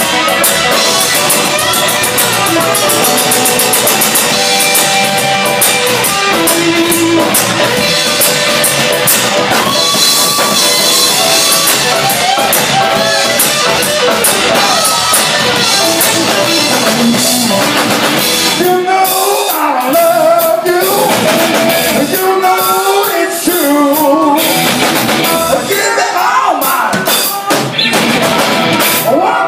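Live blues band playing at full volume: lead electric guitar over bass guitar and a drum kit, with a voice singing in from about two-thirds of the way through.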